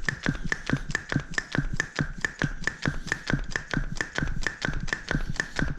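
Air pump being worked to inflate a flat Xiaomi M365 electric scooter tyre: a fast, even run of clicking pump strokes, about five clicks a second, each with a short high squeak of air.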